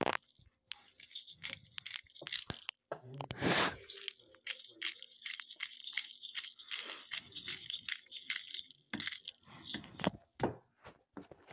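Salt being dispensed from a glass seasoning bottle: a run of short, crunchy rattles and clicks, with a louder rustle about three and a half seconds in.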